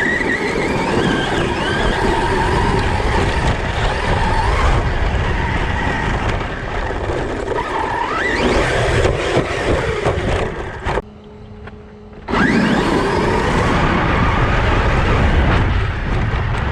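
Brushless electric motor of a large RC car whining up and down in pitch as it accelerates and slows, over a rough rumble of tyres on the ground. The noise drops away for about a second past the middle, then a sharp rising whine as it accelerates again.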